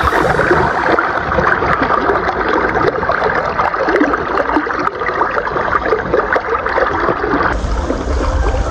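River water splashing and gurgling close by, around hands and a mesh landing net held in the shallow current while a caught ayu is handled. Near the end the sound changes to a steadier rush with a heavy low rumble.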